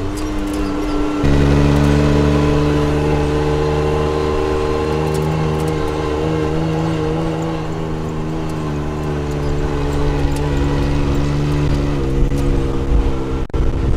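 Yamaha YXZ1000R side-by-side's three-cylinder engine running under way, the note changing about a second in and then holding fairly steady as the vehicle cruises.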